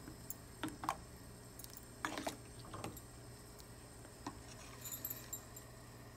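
A spoon knocking and scraping against a steel pot as thick cassava pudding is stirred: a handful of faint, irregular clicks over a low steady hum.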